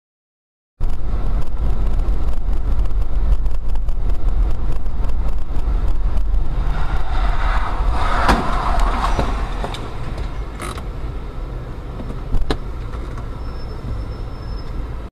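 Vehicle interior road noise from a moving car's dash camera: a steady low rumble of engine and tyres that starts suddenly. A rush of noise builds about seven seconds in, peaking with a sharp knock, and another sharp knock comes near the end.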